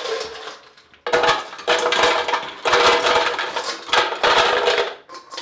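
Ice cubes clattering and clinking as they are tipped from a stainless steel mixing bowl into an empty clear blender pitcher, in several rushes with short pauses between them.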